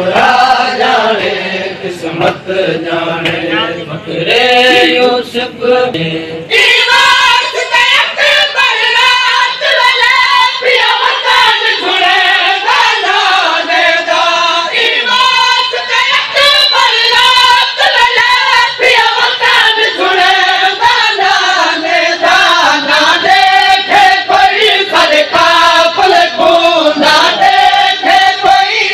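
Noha, a Shia mourning lament, chanted loudly by a reciter and a crowd of mourners in unison. From about six seconds in, sharp rhythmic slaps join and keep time with the chant, the sound of matam (chest-beating).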